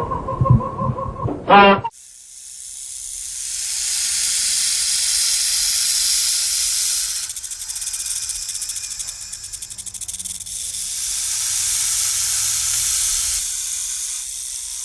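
An animal hissing: a long, loud hiss that swells and fades in slow breaths, starting about two seconds in after a brief pitched call.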